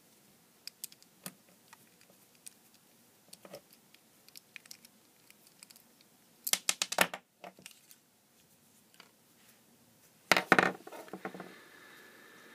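Light clicks and scrapes of a small screwdriver working the screw out of a cheap soldering iron's plastic handle. Two louder bursts of clicking and plastic clatter come about six and a half and ten seconds in, as the handle is worked apart.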